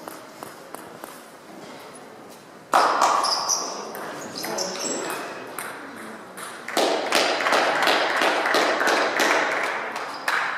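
Table tennis ball clicking and pinging off bats and the table. About three seconds in, a sudden loud burst of noise from the hall cuts in and fades, and a longer loud stretch follows later on.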